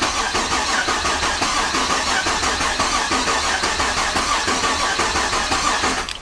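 Starter motor cranking the 5.7-litre LS1 V8 steadily without it firing, its fuel pump disabled, to build oil pressure after a camshaft swap. The cranking stops abruptly near the end.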